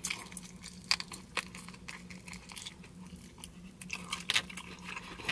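A person chewing a mouthful of grilled meat, with irregular soft clicks and smacks of the mouth.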